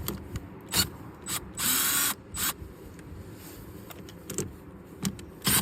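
Power drill driving a 10 mm socket, spinning the mirror's mounting nuts off in several short bursts, the longest about a second and a half in and another near the end.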